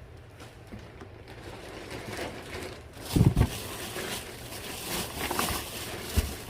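Handling noise from rummaging through bagged items: rustling, with two heavy thumps about three seconds in and another near the end.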